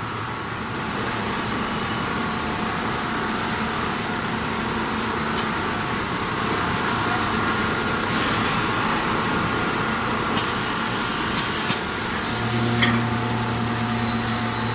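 Snack seasoning coating drum machine running with a steady mechanical noise, a few short clicks, and a low motor hum coming in about twelve seconds in.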